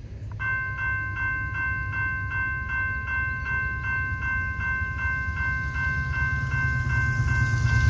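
GS Type 2 electromechanical railroad crossing bell starts ringing about half a second in, struck steadily at about two and a half strokes a second, as the crossing activates to warn of an approaching train. Beneath it a low rumble grows louder toward the end.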